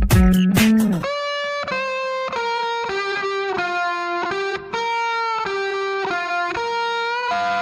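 Instrumental background music: the beat drops out about a second in, leaving a solo melody line of single held notes.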